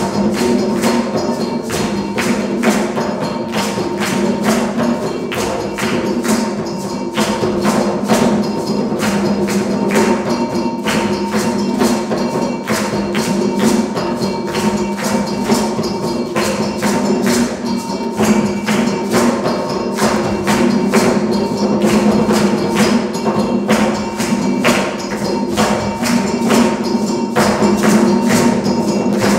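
Ensemble of djembe hand drums playing a fast, steady West African rhythm for dancing.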